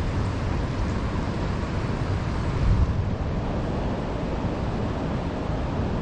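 Wind buffeting the microphone over the steady rush of river current, with a stronger gust about three seconds in.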